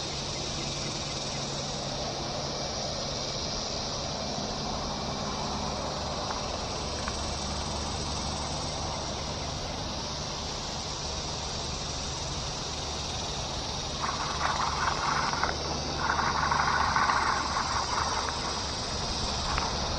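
A steady outdoor background of an insect drone over a low hum like distant traffic. From about two-thirds of the way in, louder irregular noises come and go over it.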